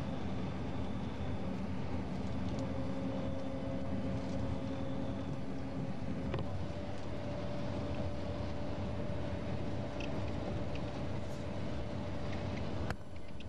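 Steady engine drone and road noise of a moving road vehicle, heard from inside it. The engine tone shifts a little about six seconds in, and there is a short click and brief dip near the end.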